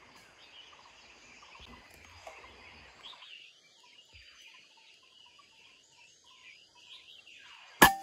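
A PCP air rifle fires a single shot near the end: one sharp crack with a brief ring after it. Before it there are only faint bird calls over a quiet background.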